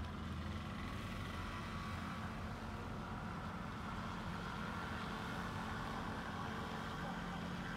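Steady low hum of a cruise ship's engines and machinery heard from on board, with an even hiss above it.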